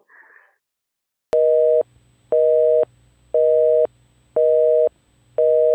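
Telephone busy signal: a click about a second in, then five two-tone beeps, each about half a second long, one a second, the tone a phone line gives once the call has been cut off.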